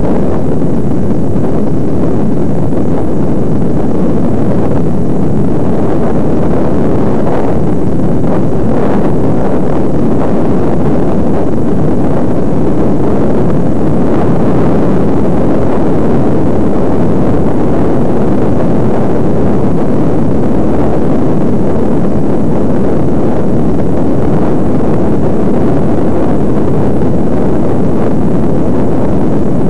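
Loud, steady rumble of wind buffeting the microphone of a camera moving up a road climb, with no break or change.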